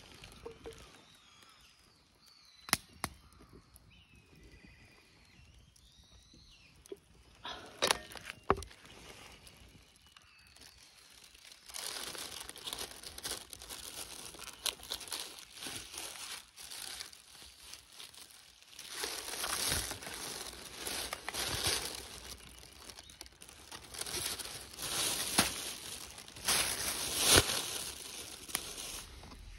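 Plastic film crinkling and tearing in irregular rustling bursts, growing louder toward the end, as the wrap is peeled off a supermarket tray of raw tuna and the slices are taken out. A few sharp knocks come in the first ten seconds, before the rustling starts.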